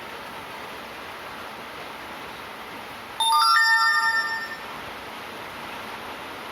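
Steady hiss of falling rain. About three seconds in, a short electronic chime of a few quickly rising notes rings out over it, the loudest thing heard, and fades after about a second.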